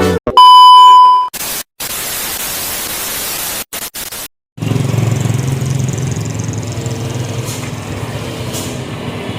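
A loud, steady electronic beep about a second long, then a couple of seconds of hiss cut by dropouts into dead silence. About halfway through, the steady low rumble of heavy truck engines climbing a hill begins.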